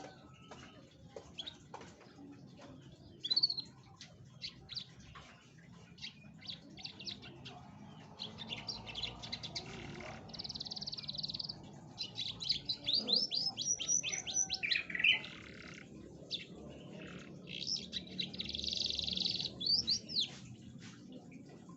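Domestic canary singing: fast high trills and runs of quick rising notes, with buzzy rolls about ten seconds in and again near the end. It is a lure song played to set silent canaries singing.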